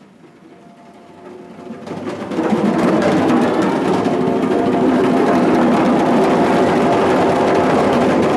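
A group of djembes played together by hand, starting soft and swelling into loud, dense drumming about two and a half seconds in, then holding it.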